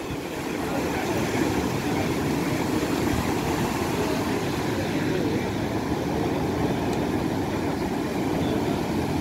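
Ocean surf breaking and washing up the beach, a steady rushing noise.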